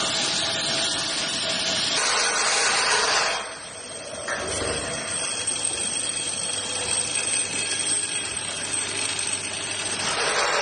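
Automatic tapping machine running, with a loud hiss that drops off about three and a half seconds in, leaving a quieter steady whine and low hum.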